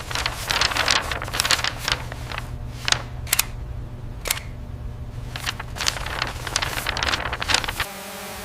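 Steady low machine hum with many sharp clicks and knocks and short hissing bursts scattered on top, typical of work-site noise.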